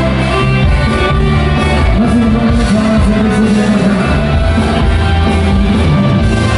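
Music with held, sustained notes.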